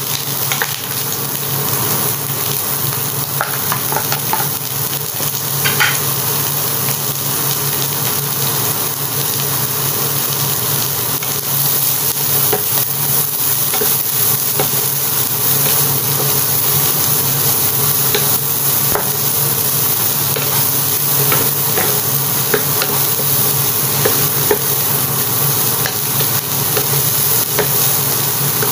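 Diced carrot, ham, hot dog, chicken and onion sizzling in a hot nonstick frying pan as they are stir-fried with a wooden spatula. Short scrapes and taps of the spatula against the pan now and then cut through the steady sizzle.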